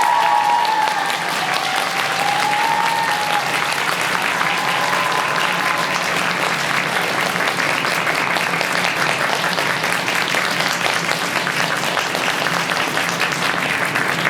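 Audience applauding, a dense steady clatter of many hands, with a few faint sliding tones over it in the first few seconds.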